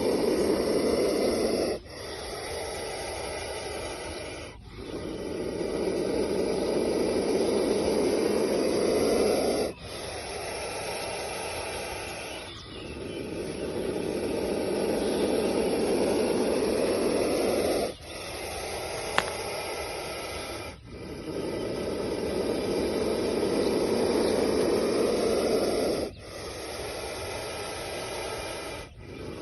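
Indian cobra in its hooded warning stance, hissing over and over: long, louder hisses of about four to five seconds alternate with shorter, quieter ones of about three seconds. The hiss is a warning not to come near or provoke it. The recording's volume has been boosted.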